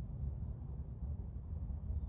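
Outdoor ambience: a low, uneven rumble with a few faint, short high chirps above it.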